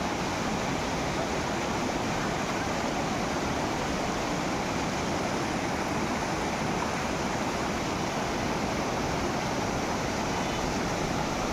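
Flood stream swollen by heavy rain, its muddy water rushing over rocks in a steady, unbroken torrent.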